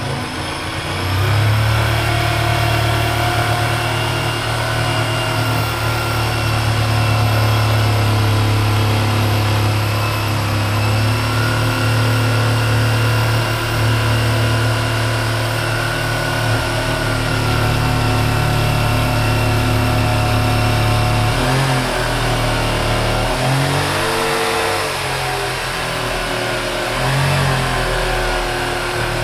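Hand-held electric power tool working the rim of a plastic barrel. Its motor runs steadily for about twenty seconds, then the pitch dips and recovers several times as it comes under load.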